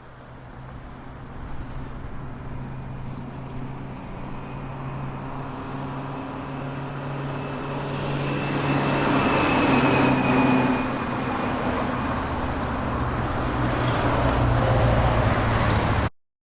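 Motor vehicle and road noise: a steady low hum under a rushing haze that builds gradually louder, then cuts off suddenly near the end.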